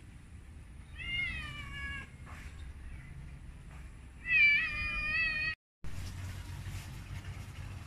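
A cat meowing twice, each meow about a second long: one about a second in with a falling pitch, and a louder one a few seconds later.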